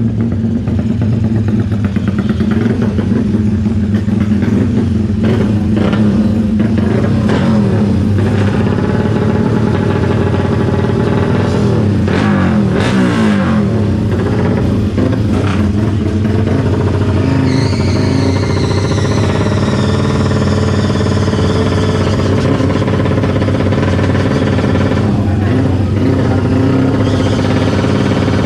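Tuned big-bore Yamaha Exciter 150 race motorcycles running loud and continuously, their engine pitch rising and falling around the middle as they rev.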